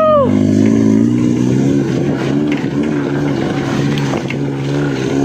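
A vehicle engine running steadily at low speed, its pitch wavering slightly.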